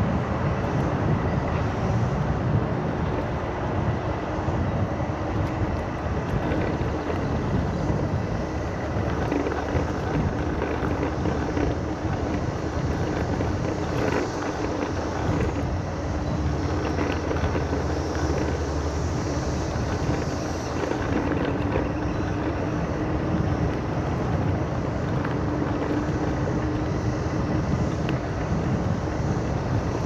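Segway Ninebot Max G2 electric kick scooter riding steadily along a trail: tyre rumble and wind on the microphone, with a faint steady hum underneath.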